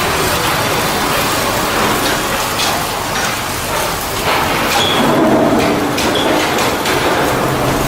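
Shipyard work noise: a steady mechanical clatter with scattered clicks and knocks.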